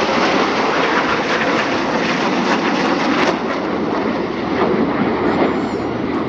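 Military display aircraft flying past, a loud, steady engine noise with no clear beat.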